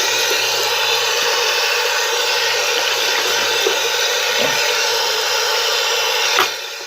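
Water running from a tap in a steady stream, stopping suddenly with a click near the end.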